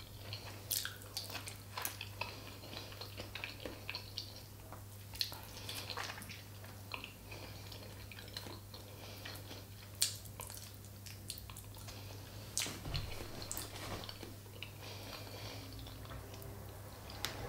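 A person chewing food close to the microphone, with many short wet mouth clicks scattered throughout, over a steady low hum.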